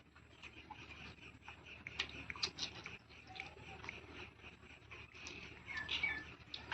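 A person chewing and eating close to the microphone, with scattered small wet clicks and smacks.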